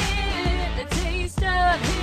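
Pop music with a steady beat and a singing voice.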